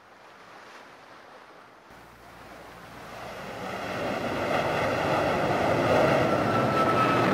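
A rushing noise like wind and surf starts faint and swells to loud over several seconds, with a thin high tone coming in near the end.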